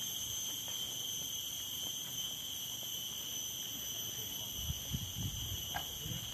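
Steady chorus of forest insects, several high drones held at even pitch. A few low rumbles come in over it near the end.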